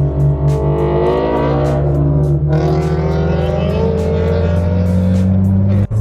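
Background music with a steady beat over a Subaru flat-four engine and exhaust, its pitch gliding down and back up as it revs. The sound cuts off abruptly near the end.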